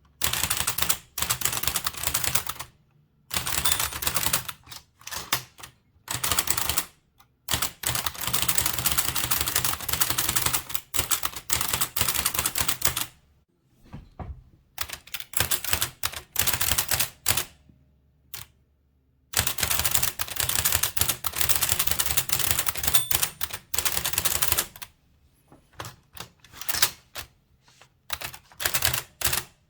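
Blickensderfer typewriter being typed on: a fast clatter of key presses and type-cylinder strikes on the paper, in runs broken by a few short pauses and one longer pause about two-thirds of the way through.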